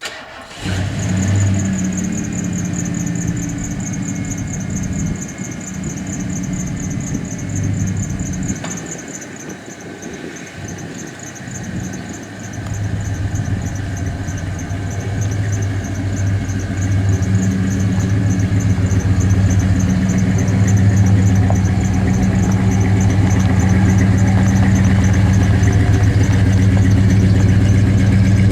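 1990 Ford Bronco engine starting up and running, unsteady for the first dozen seconds, then idling steadily and louder. A thin, high pulsing whine sits above the engine throughout.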